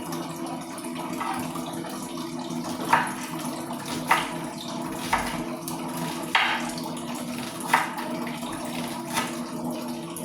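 Kitchen knife chopping on a cutting board, six sharp knocks about a second or so apart, over a steady hum and hiss.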